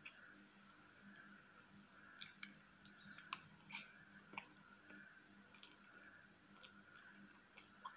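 Close-miked eating of soft whipped-cream cake with a metal fork: a scatter of small clicks and wet mouth smacks, the sharpest about two seconds in. A faint steady hum runs underneath.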